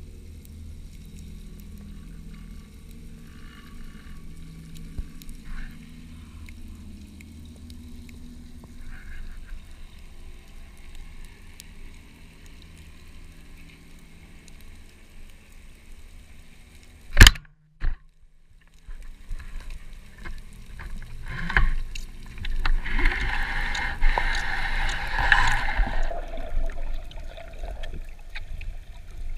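Underwater sound from a freediver's camera: a low steady rumble of water with faint ticks, broken about two-thirds through by one sharp, loud crack. After it comes louder rushing, gurgling water noise, strongest for a few seconds near the end.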